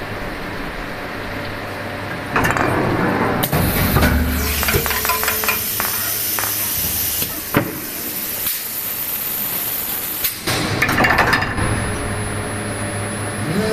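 400-ton hydraulic injection moulding machine running through a moulding cycle: a steady hum, then from about two seconds in a surge of hiss with a run of clicks and knocks as the mould opens and the washbasin is ejected, and a second surge of hiss and knocks about ten seconds in as the machine moves again.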